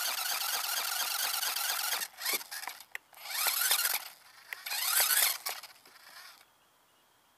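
A small motor spinning a duct-taped contraption, with a high-pitched squealing whir. It runs steadily for about two seconds, then cuts in and out in three short bursts, rising and falling in pitch, and stops about six and a half seconds in.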